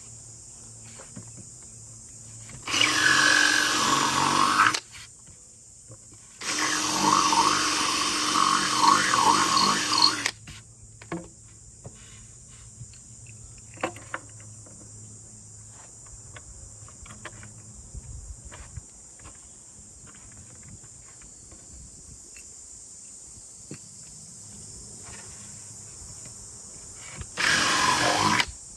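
Power drill running in three bursts, the second one longest, boring into the wooden shell of a floor tom. Light clicks and knocks of handling come between the bursts.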